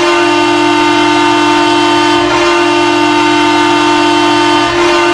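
Custom Ottawa Senators hockey goal horn sounding one long, steady blast.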